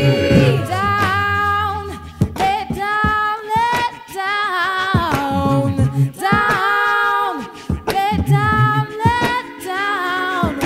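A cappella vocal music: several voices sing in layered harmony in sung phrases over low held notes, with a woman's voice among them.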